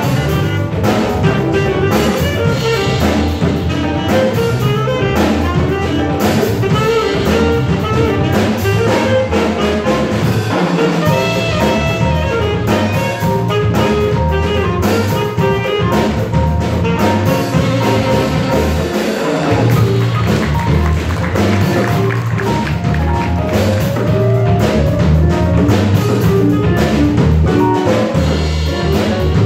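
Live jazz-funk band playing: saxophone over digital piano and a drum kit keeping a steady groove.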